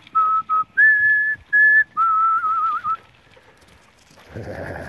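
A person whistling with the lips to call dogs: a run of short level notes, then two longer, higher notes, then one long warbling note that stops about three seconds in.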